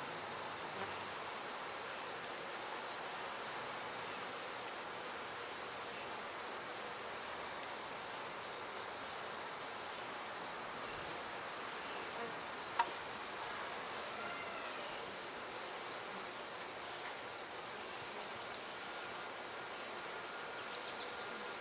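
Steady, high-pitched chorus of insects chirring without a break, with a single light click a little past halfway.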